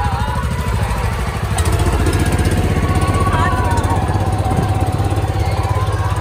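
Motorboat engine running steadily, with a fast, even low pulse.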